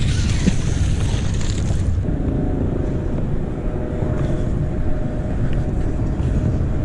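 Wind rumbling on the microphone over open water. A magnet on a rope is cast and lands in the water near the start, and a faint steady engine hum comes in about two seconds in.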